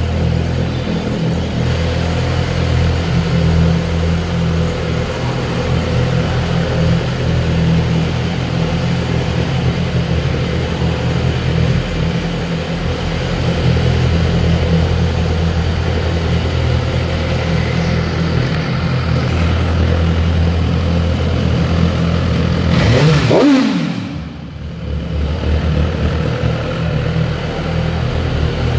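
Suzuki GSX-R1000R's inline-four engine idling steadily. About six seconds before the end there is a single quick throttle blip: the revs rise, fall back, dip briefly, and settle into idle again.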